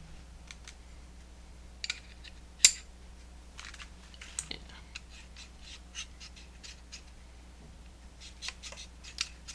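Light clicks and taps of small hard objects being handled, with one sharp, loud click about two and a half seconds in and a run of quick small ticks near the end.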